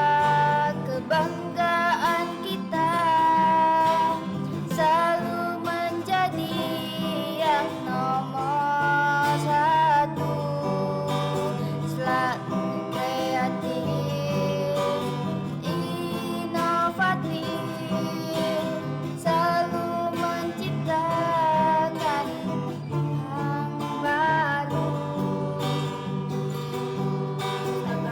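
Background song: a sung melody over strummed guitar accompaniment.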